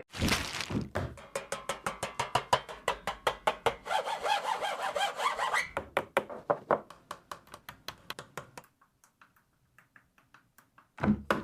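Quick, evenly repeated scraping strokes, several a second, that slow, fade and stop, followed by near silence.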